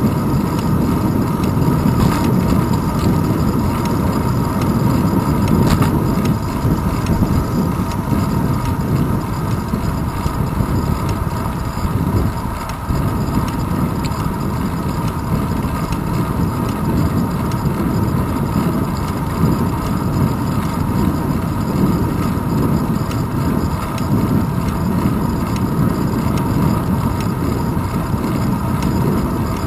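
Steady low rumble of wind buffeting and road vibration picked up by a handlebar-mounted GoPro Hero 2 on a bicycle rolling along a paved trail.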